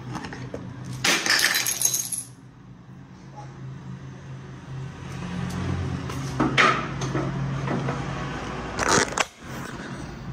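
Three short crashes with glass clinking and breaking, heard about a second in, around six and a half seconds and around nine seconds, over a low steady hum.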